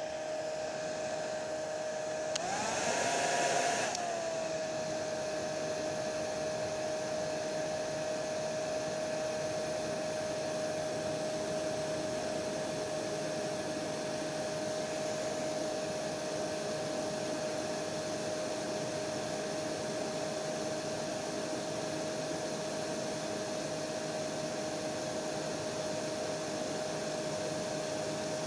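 Hair dryer running steadily: rushing air with a steady motor whine. About two and a half seconds in, the whine rises and the air gets louder for a second or so, then settles back to the same steady hum.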